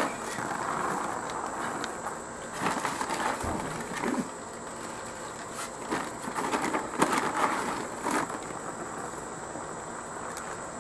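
Dry cat kibble poured from a bag, rattling onto a mat in several short bursts, over a steady high drone of insects.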